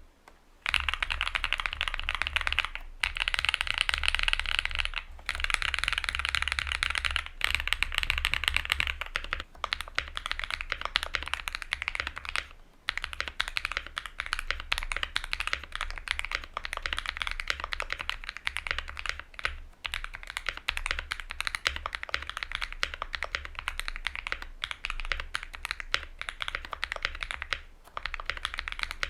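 Fast, continuous typing on a Luminkey65 custom mechanical keyboard with lubed and filmed switches in an FR4 plate: a dense stream of bright key clacks, broken by a few brief pauses.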